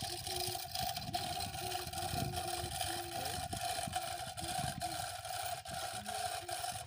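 A steady mechanical hum like a small engine running, one constant tone over a rough low rumble.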